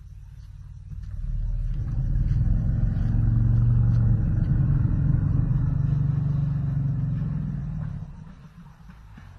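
Elephant giving one long, low growl that swells up about a second in and dies away about eight seconds in.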